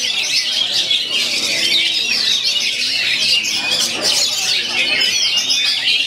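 Caged oriental magpie-robins (kacer) singing at once in a dense, continuous chorus of loud, fast, varied song phrases.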